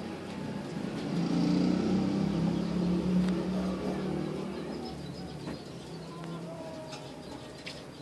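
A low engine hum, like a passing motor vehicle, swells about a second in and fades by the middle. After it come a few short bird chirps and light ticks.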